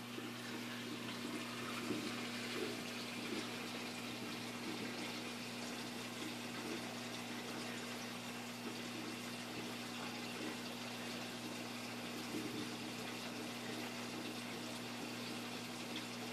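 Reef aquarium water circulating: a steady trickle and splash of moving water, with a low, even electric hum from the tank's pump.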